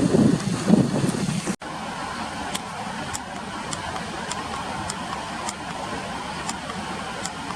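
Steady rushing outdoor noise, deeper and louder for the first second and a half until a sudden cut, then an even hiss with short high ticks about once a second.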